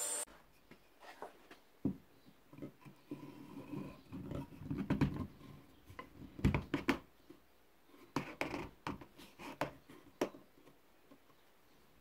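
Turned wooden table-leg sections being slid onto a wooden dowel and handled on a plywood bench during a dry fit. Irregular knocks, clicks and rubbing of wood on wood, busiest in the middle.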